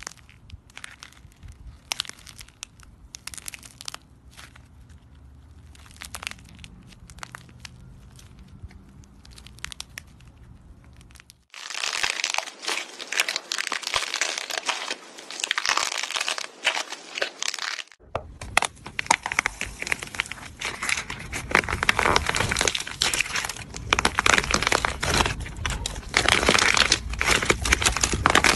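Dried clay coating being cracked, torn and crumbled in the hands. Sparse, separate crackles for about the first ten seconds, then dense, continuous crackling and crunching from about eleven seconds on.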